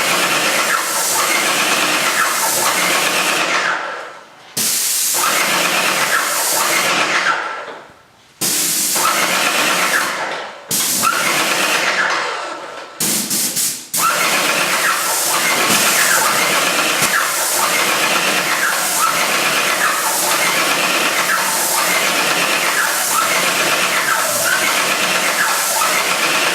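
Paint sprayer spraying primer onto kitchen cabinets: a loud, steady hiss that stops and starts sharply four times in the first half, then runs on without a break from about halfway. A faint pulse rises and falls about once a second.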